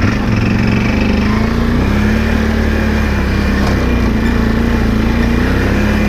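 Can-Am Outlander ATV's V-twin engine running steadily under way on a rough trail, its pitch rising and dipping slightly with small throttle changes.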